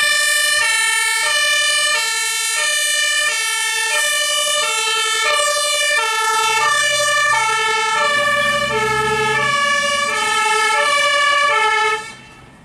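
Fire engine's German two-tone siren (Martinhorn) on an Iveco Magirus HLF 20/16, alternating high and low notes at about one cycle a second, loud and steady; it cuts off suddenly near the end.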